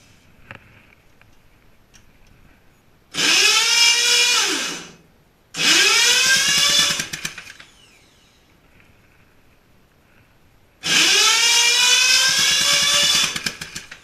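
An electric motor worked from a hand-held push-button switch, run in three bursts of about two seconds. Each time it whirs up to speed and winds down when released.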